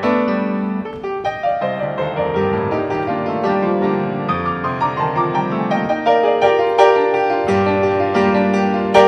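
Solo classical piano music: a continuous run of struck notes, with one loud accent near the end.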